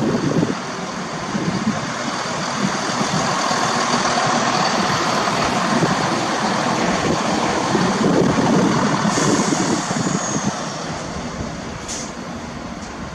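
Class 170 Turbostar diesel multiple unit running along the platform on its underfloor diesel engines, with wheel-on-rail noise, easing off in the last few seconds as it draws away. A brief high squeal about nine seconds in.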